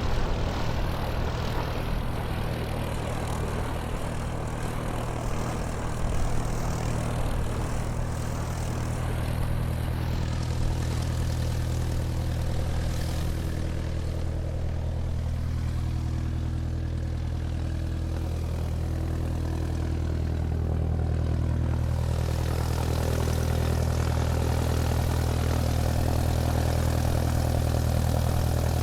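Airplane engines running as the aircraft taxis: a steady low drone with a constant hum, getting a little louder over the last several seconds.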